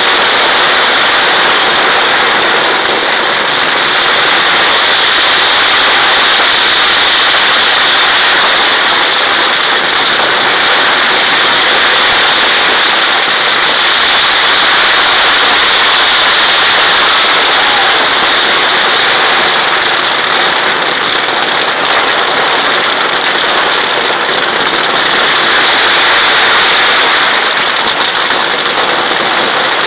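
Ground-level fireworks going off in a dense, unbroken barrage, the bangs so rapid that they merge into one steady, loud noise that swells and eases slightly.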